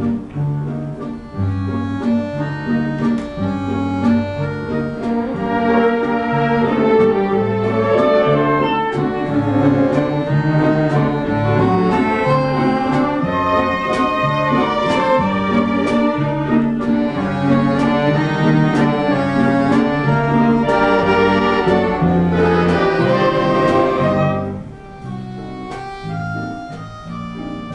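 Orchestra playing an instrumental waltz passage, full and loud, dropping to a quieter passage about 24 seconds in.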